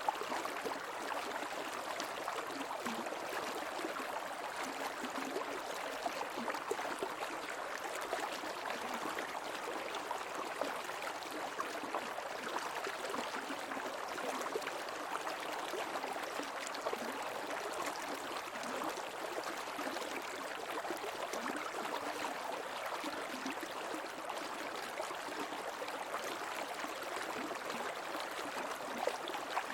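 Shallow creek water flowing and gurgling steadily over rocks.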